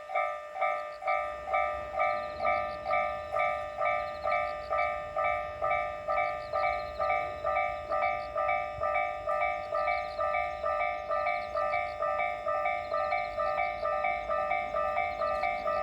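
Japanese railway level-crossing alarm ringing its electronic ding about twice a second, steady throughout. A low train rumble joins in about a second in.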